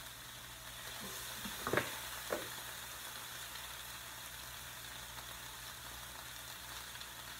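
Sliced vegetables, bell peppers among them, sautéing in a very hot pan, with a steady sizzle. A couple of light knocks come about two seconds in.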